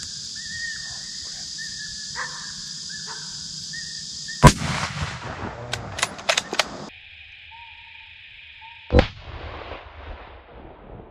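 A rifle shot, one very loud sharp crack about four and a half seconds in, followed by a few short clicks. After an abrupt change in background near seven seconds, a second loud crack comes near nine seconds: the same shot heard from another camera. Before the shot, a steady high insect drone and a repeated high whining call.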